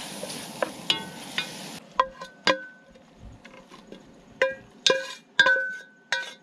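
Spinach and garlic sizzling in butter in a stainless steel pot as a wooden spoon stirs it. About two seconds in, the sizzle gives way to a run of sharp knocks that ring out at the same few pitches each time: the wooden spoon striking the stainless pot while scraping the wilted spinach out onto a plate.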